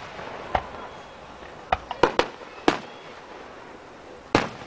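Aerial firework shells bursting: about six sharp bangs at uneven intervals, three of them bunched together around two seconds in.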